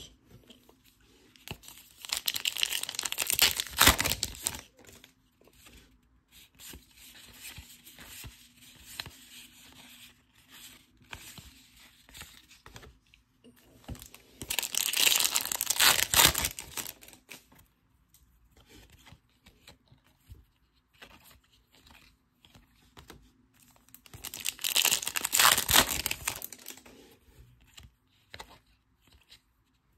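Trading card foil packs being torn open, their wrappers crinkling, in three loud bursts of tearing about ten seconds apart. Quieter rustling of cards being handled fills the gaps.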